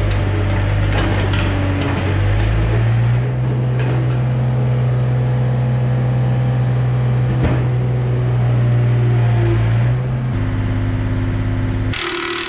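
Yanmar B37 mini excavator's diesel engine running as the machine travels and turns on its tracks; its pitch steps up about three seconds in and drops back near ten seconds. Just before the end a handheld power tool starts up.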